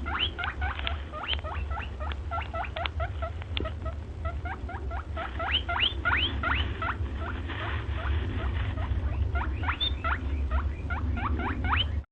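Small rodent squeaking: a quick run of short rising squeaks, several a second, over a low rumble.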